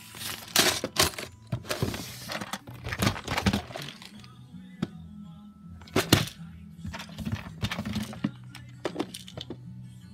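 Lego bricks and clear plastic storage boxes being handled, giving a series of sharp plastic knocks and rattles, the loudest about six seconds in, over steady background music.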